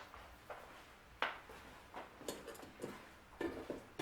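Hand tool working the screws that hold the motor to its mount: faint, scattered clicks and light taps, the sharpest about a second in and a few more close together near the end.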